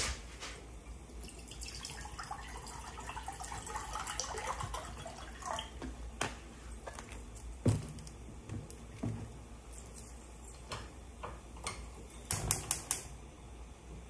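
Kitchen handling noises: scattered light clicks and knocks of a plastic spoon and small containers being handled, with a few louder knocks about eight seconds in and a short cluster near the end.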